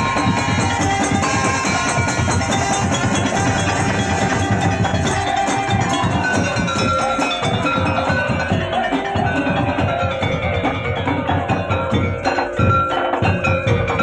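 Loud, busy percussion music: drums beating a dense, steady rhythm under ringing bell-like tuned metal percussion and wood-block knocks.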